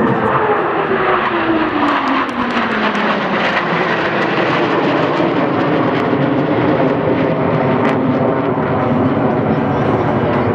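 Blue Angels F/A-18 Hornet jets passing in a flyby, with a loud steady jet roar. A tone falls in pitch over the first few seconds as the jets go by.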